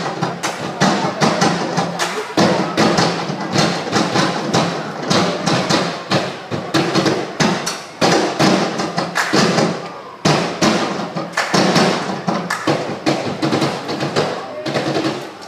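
Live percussion routine: a fast run of sharp hits and thumps over music, stopping just at the end.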